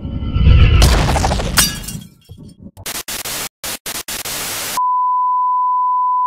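Sound-effect sequence: a loud crash with glass-like shattering over the first two seconds, then stuttering bursts of static hiss cutting in and out. From just under five seconds a single steady beep, the test tone that goes with colour bars, holds to the end.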